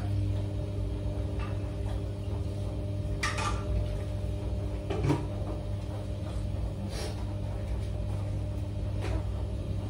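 A few short knocks and clicks of a spoon and fork against a dinner plate, spaced a second or two apart, over a steady low hum.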